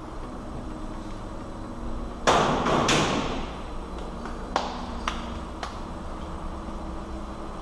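Metal repair work on a van's front suspension: a short loud clatter about two seconds in, then three sharp metallic clicks about half a second apart, over a steady low hum.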